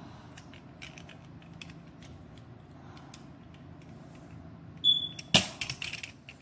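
Handling noise close to the microphone: faint scattered ticks over a low steady hum, then near the end a short high beep, a sharp knock and a quick rattle of smaller clicks and knocks.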